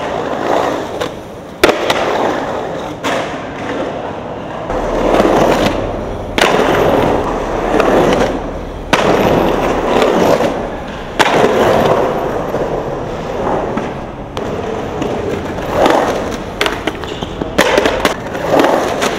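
Skateboard wheels rolling and carving through a concrete bowl, the rolling noise swelling and fading in surges. Sharp clacks and knocks of the board hitting the concrete come several times.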